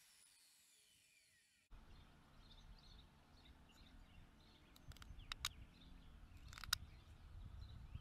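A circular saw's blade spinning down after the cut, a faint falling whine. Then a low wind rumble with faint bird chirps and a few short, sharp scrapes as a pocketknife shaves a carpenter's pencil.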